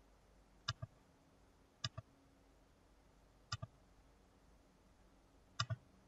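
Computer mouse clicking: four short pairs of quick clicks, spaced a second or two apart, over a faint steady hum.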